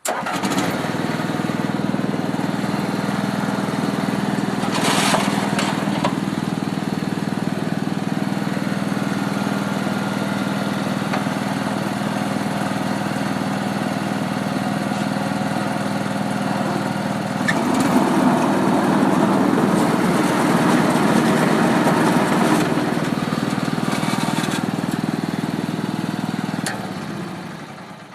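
Christmas tree baler's motor running steadily as a tree is fed through and wrapped in netting. It grows louder and rougher for several seconds past the middle, then shuts off and winds down near the end.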